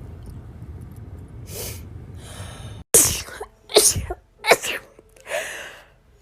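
A woman sneezing in a rapid run: four sharp sneezes less than a second apart, the last one softer, after a couple of faint breaths in.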